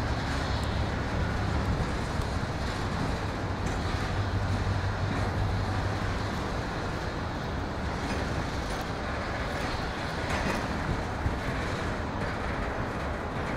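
Diesel locomotive D-3301's engine running as it approaches slowly along the tracks: a continuous rumble with a low steady hum, stronger in the first half.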